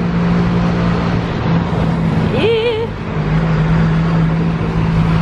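Bus engine running with a steady low drone and road noise, heard from inside the moving bus. A brief wavering pitched sound comes about halfway through.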